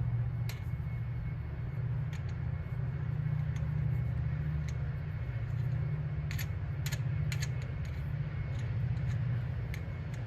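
Small hardware being screwed on by hand, with scattered light metal clicks and taps, a quick cluster of them about two-thirds of the way in. A steady low rumble lies under it throughout.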